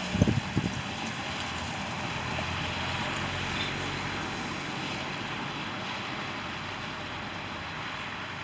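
Street traffic: a steady rushing of passing vehicles that swells a few seconds in and then eases, with a few short low thumps right at the start.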